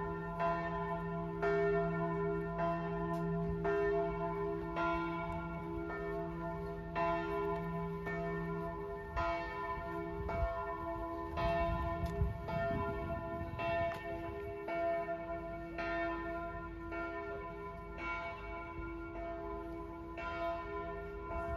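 Church bells ringing in a steady peal, a stroke about every two-thirds of a second over a lasting hum of tones.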